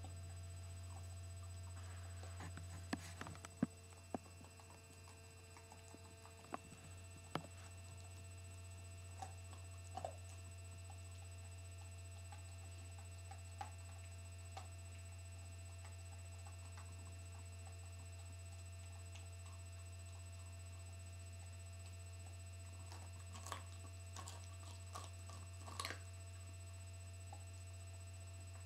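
A dog gnawing a veal breast bone: scattered clicks and crunches of teeth on bone, in small clusters with quiet gaps, over a steady low hum.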